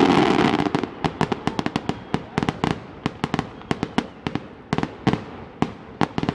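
Fireworks popping and crackling: a dense, loud burst of crackle in the first second, then many sharp separate cracks that thin out toward the end.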